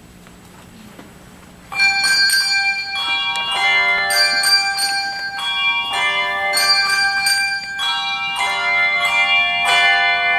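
English handbells rung by a handbell choir: after a quiet stretch of room tone, the bells come in suddenly about two seconds in, ringing a series of struck chords whose tones sustain and overlap.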